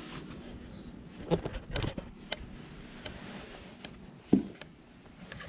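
Leather cowboy boots being worked off in a wooden boot jack on a tile floor: several short scuffs and knocks, then one louder thump a little after four seconds in.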